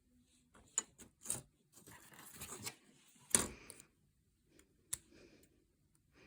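Small plastic model-kit parts handled on a desk: a few sharp clicks and taps, the loudest about three seconds in, with a short rustle between them.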